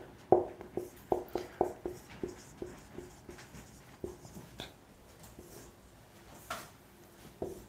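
Marker writing on a whiteboard: a quick run of short taps and strokes, about three a second for the first three seconds, then a few sparser strokes.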